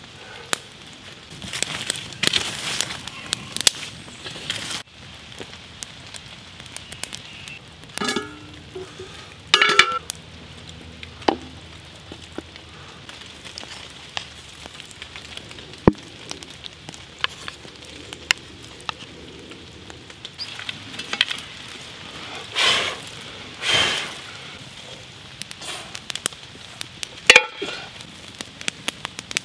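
A wood campfire crackling, with many scattered sharp pops over a steady hiss. A handful of louder, brief rustles come through now and then.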